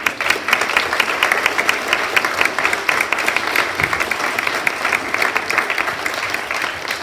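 An audience of schoolchildren applauding, many hands clapping at once. It starts suddenly and dies away near the end.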